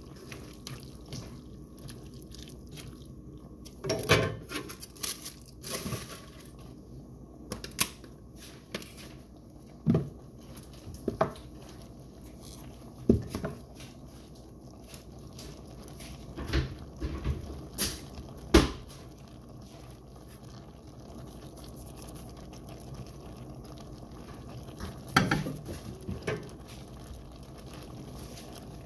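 Macaroni and ground meat simmering in liquid in a skillet, with a slotted spatula stirring and now and then knocking and scraping against the pan in a few sharp clatters.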